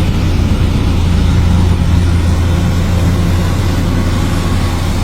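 A heavy engine running steadily at a low rumble, with a loud even hiss of road or wind noise over it.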